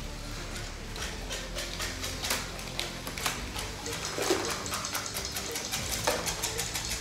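Small electric motors of Lego combat robots whirring steadily, with plastic bricks clicking and clattering as the robots' weapons and bodies knock together, many sharp knocks throughout.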